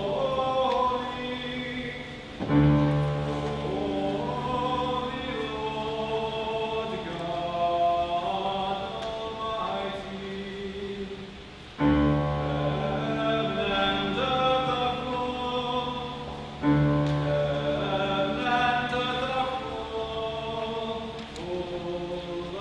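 Mixed youth choir singing in parts, with sustained chords and sudden loud entries about two and a half, twelve and seventeen seconds in.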